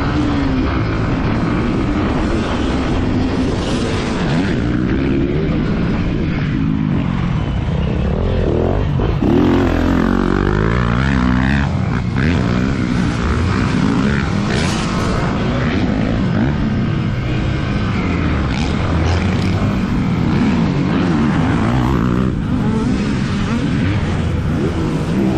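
Yamaha WR155R's 155 cc single-cylinder four-stroke engine revving up and down while being ridden, its pitch rising and falling over and over with throttle and gear changes.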